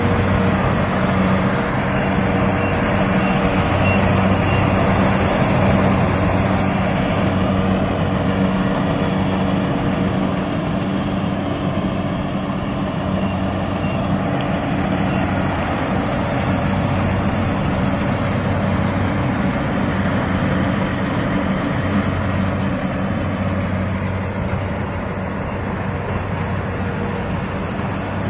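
Kubota DC68G Harvesking combine harvester running steadily while cutting and threshing ripe rice: a steady diesel engine hum under the whirr of its threshing machinery. A high hiss over it drops away about seven seconds in and comes back about halfway through.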